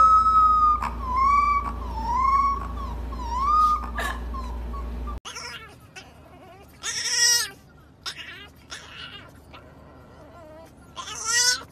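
Golden retriever puppy howling in a series of short, wavering, rising-and-falling howls over a low steady hum. After a cut, a French bulldog puppy gives two brief, high howling cries about four seconds apart.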